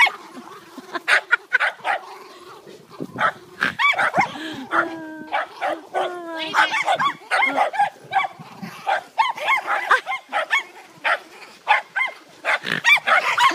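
A group of dogs (a Labrador, mastiffs and terrier puppies) barking and yipping in rough play, with short calls coming thick and fast. A few longer sliding whines come about five to six seconds in.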